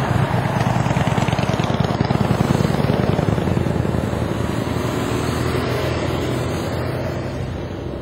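Several motorcycles passing on the highway, their engines loudest about two to three seconds in and then fading.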